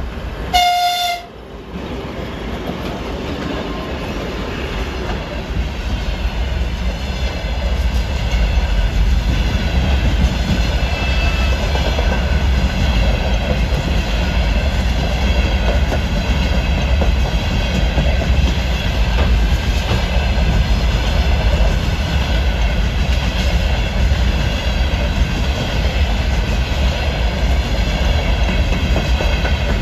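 A short blast on a train's horn about half a second in, then a freight train of wagons and containers rolling past close by. The wheels clatter over the rail joints in a steady, loud rumble that builds over the first several seconds and then holds.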